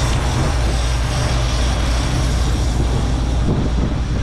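Fishing boat's engine running steadily at trolling speed, a constant low hum under the rushing wash of the wake.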